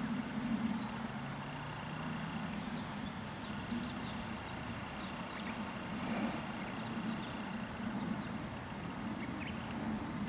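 Insects trilling steadily outdoors: a constant high-pitched tone with scattered faint chirps over a low, even background hum.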